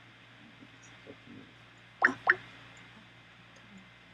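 Skype's incoming-call ringtone: two quick rising bloops, about a quarter second apart, about two seconds in.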